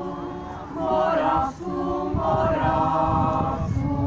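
A group of voices singing together unaccompanied, in long held notes.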